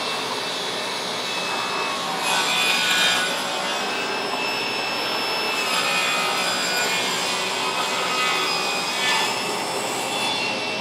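Shopsmith table saw ripping a board lengthwise: the motor and blade run steadily while the cut through the wood grows louder and softer as the board is fed through.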